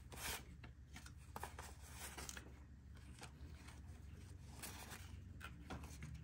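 Paper banknotes rustling and flicking softly as they are counted and shuffled by hand, over a faint steady low hum.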